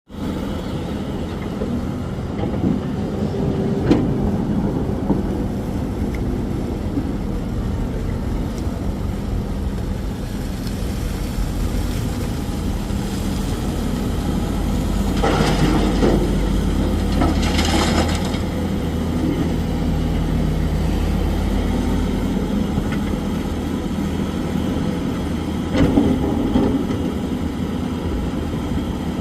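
Excavator's diesel engine running steadily, with a few short bursts of rattling clatter from coal being loaded, about 4 seconds in, twice around the middle, and again near the end.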